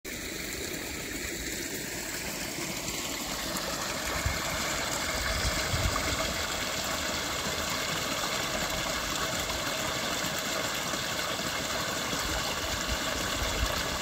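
Steady rush of flowing water, with a few low rumbles about four to six seconds in.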